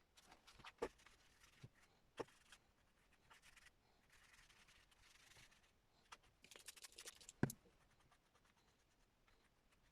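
Quiet scratching and rubbing as paper and art materials are handled, with scattered light taps, a quick run of clicks and a sharp knock about seven and a half seconds in.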